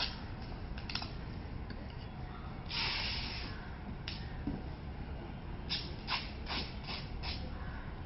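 Packing tape being ripped off its roll while cardboard boxes are taped shut: one long rasping pull about three seconds in, and a quick run of short rips and cardboard rustles later, over a steady low background rumble.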